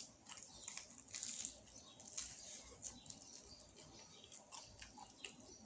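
Faint chewing of a lobster roll, with scattered soft mouth clicks and smacks.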